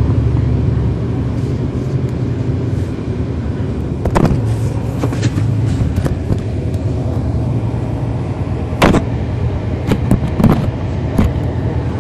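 Cummins ISL9 inline-six diesel of a NABI 40-foot transit bus running under way, heard from inside the cabin as a steady low drone. A string of sharp knocks and rattles comes through from about four seconds in, the loudest about nine seconds in.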